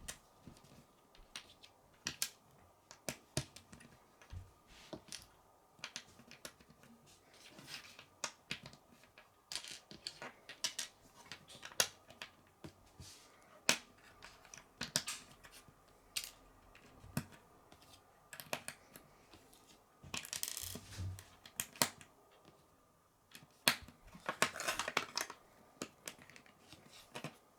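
Plastic Lego bricks clicking as they are handled and pressed together: scattered sharp clicks, with a few short rustling spells of pieces being sorted.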